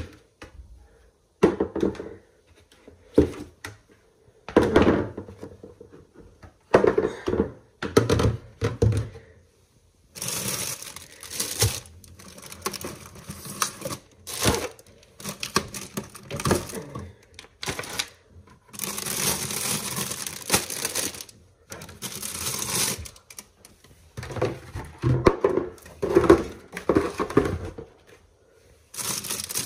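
Scattered knocks and thuds for about the first ten seconds, then long stretches of plastic crinkling and rustling as things are handled.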